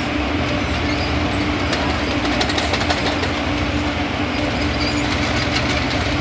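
Steady engine drone of heavy railway track machinery, with a constant hum and light metallic clicks over it.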